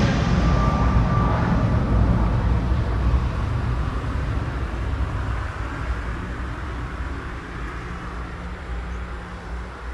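AirAsia X jet airliner's engines at takeoff power, receding after departure: a low rumble that fades steadily, the high hiss dying away first.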